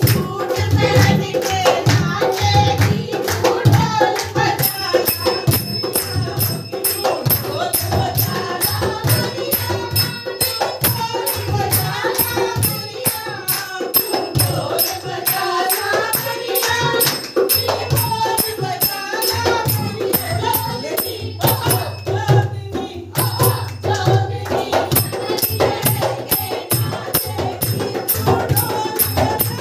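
Devotional Ganesh bhajan: voices singing a melody over a dholak drum beat, with jingling hand percussion keeping a steady, even rhythm.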